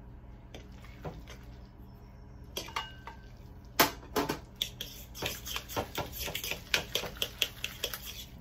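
A metal measuring cup set down with a sharp clack almost four seconds in, then a fork clicking and scraping against a mixing bowl in quick repeated strokes, several a second, as almond flour is stirred into a wet zucchini batter.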